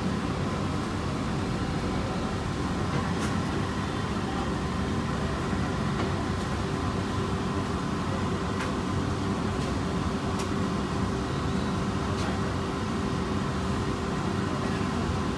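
Steady low background rumble with a faint constant hum, and a few faint ticks.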